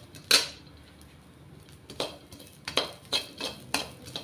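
A spatula scraping and stirring poppy seeds roasting in ghee in a kadhai. One stroke near the start, then after a pause a run of quick scrapes, about three a second.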